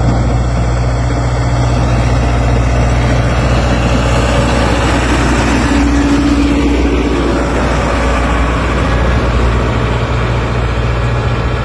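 A motor vehicle's engine running steadily with an even, low drone.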